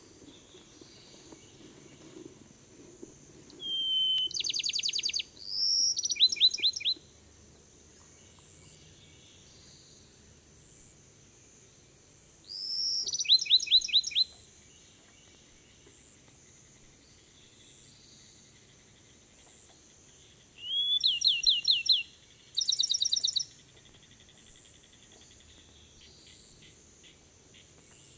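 Bachman's sparrow singing three songs, each a clear whistled note followed by a fast trill; the first and last songs run two phrases together.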